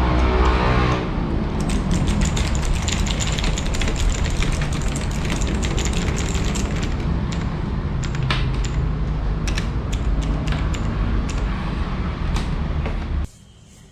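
Leaven K550 mechanical keyboard being typed on rapidly, a dense run of key clicks over a steady low background rumble. Both cut off suddenly near the end.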